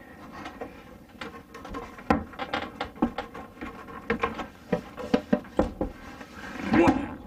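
Irregular knocks, taps and clatter as a dinette table and its telescoping stand are handled and lifted, with a louder, longer noise just before the end.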